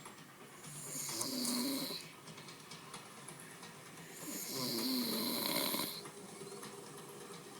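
A person snoring during a nap: two long snores, each about a second and a half, roughly three and a half seconds apart, with quieter breathing between them.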